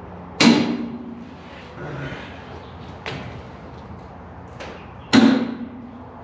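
Heavy metal clangs from the steel tilt dolly frame under the truck body as it is worked on: two loud clangs about five seconds apart, each with a short low ring, and lighter knocks between them.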